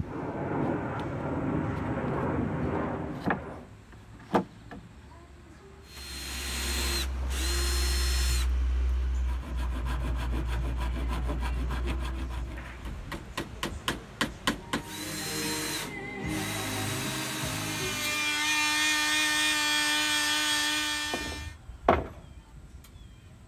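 Cordless drill driving screws into lumber in several separate bursts of whine, with a run of quick sharp clicks and knocks in the middle.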